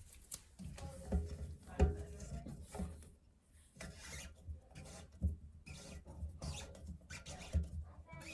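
Hands working on new toilet tank fittings: rubbing and scraping with scattered small knocks and clicks.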